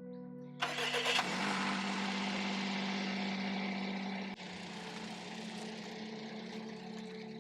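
Kei van's engine cranking and starting about half a second in, then running at idle; the idle drops a little about four seconds in. Background music plays throughout.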